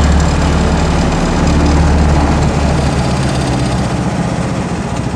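Mokai jet kayak's small engine running steadily at low speed.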